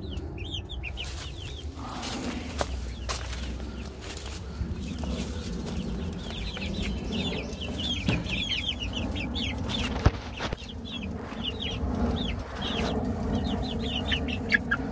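A flock of young chickens peeping and cheeping, with many short, high, falling calls that come thicker in the second half. A few sharp clicks stand out, the loudest about ten seconds in.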